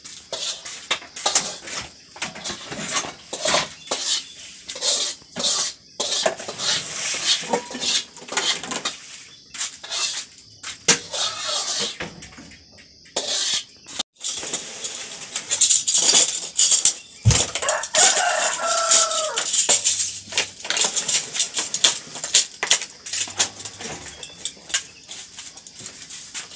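Metal pots, pans and plastic dishes clattering and knocking as they are handled at the stove and shelves, with a rooster crowing once about two-thirds of the way through.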